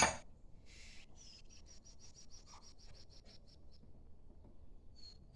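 A small bird chirping in a quick, even series of thin, high notes, about four a second, then one more chirp near the end. A sharp knock sounds right at the start.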